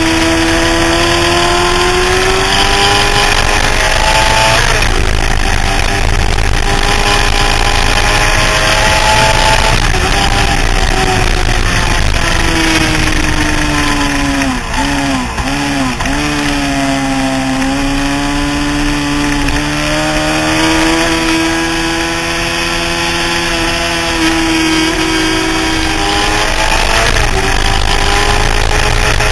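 Honda CBR600F4i inline-four sport bike engine heard from an onboard camera, pulling hard with the pitch climbing and then dropping back at each upshift. About halfway through the pitch dips sharply a few times as the bike slows for a corner, then climbs again under acceleration, with steady wind rush on the microphone throughout.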